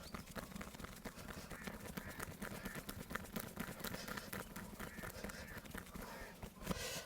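Hands tapping and slapping on a person's body during a massage: a fast, irregular patter of short taps.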